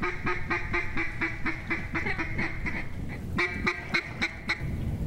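Mallard duck call blown in a fast, even run of short quacks, then a brief break and a second run of about eight quacks, calling to circling mallards.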